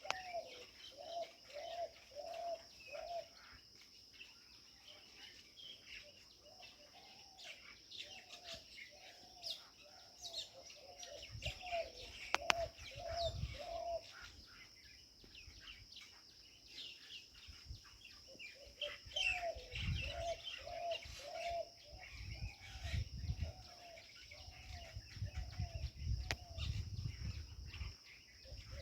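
Birds calling and chirping, with one voice repeating a short low note about twice a second in long runs, over a steady high insect buzz. A low rumble comes and goes in the second half.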